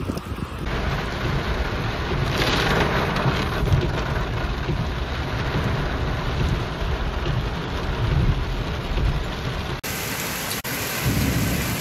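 Heavy rain and rushing floodwater: a dense, steady noise with a deep rumble underneath. The sound changes abruptly about a second in and again near the end as one recording gives way to another.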